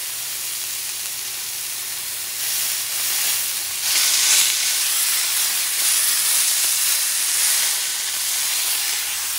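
Kangaroo loin searing in ghee butter in a hot frying pan: a steady sizzle that swells louder about four seconds in and keeps going.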